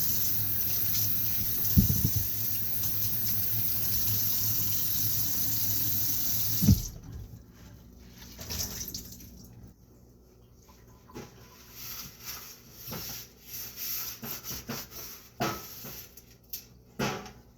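Kitchen tap running steadily into a sink for about seven seconds, then shut off with a knock. After that, scattered light clicks and knocks.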